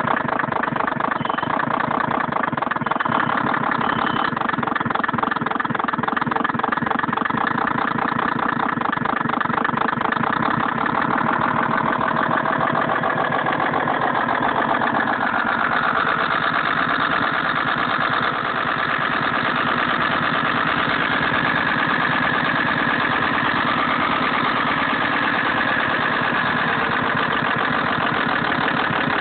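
Simulated truck engine sound from an RC Bruder toy truck's electronic sound module, running steadily with a fast even pulse. Its pitch shifts about halfway through, as if the engine speed changes.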